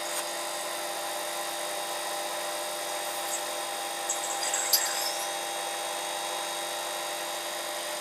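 Microwave oven running with an energy-saving light bulb inside: a steady hum and whine, with a few faint crackles and one sharp tick between about three and five seconds in.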